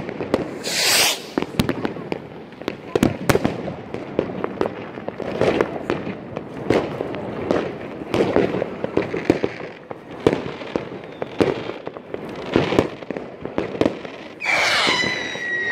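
Many fireworks and firecrackers going off all around: an irregular barrage of bangs and pops of varying loudness. There is a hissing burst about a second in, and a whistling rocket whose whistle falls slightly in pitch near the end.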